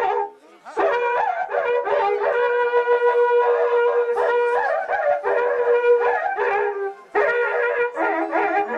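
Wind instruments playing long held, bending notes of a folk tune, with a short break just after the start and another about seven seconds in.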